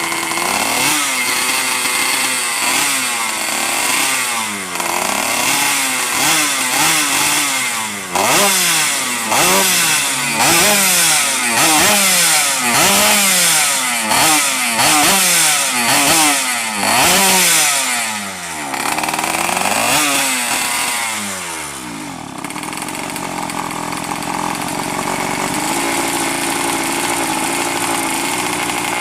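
Yamaha Alfa's two-stroke engine, bored to 116 cc and fitted with a 35 mm carburettor, revved up and down in quick blips about once a second, then settling about three quarters of the way through to a steady idle.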